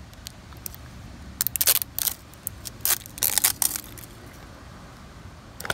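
Plastic snap-on lid of a metal can of body filler being pressed and pried, giving a run of sharp crackling, crunching clicks, busiest from about a second and a half to four seconds in.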